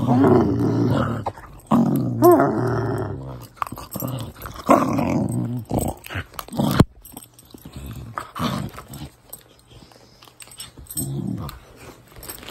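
Young Boxer–Labrador mix dog growling in play while mouthing a person's arm, in several bouts with short pauses, loudest in the first few seconds. A sharp knock about seven seconds in.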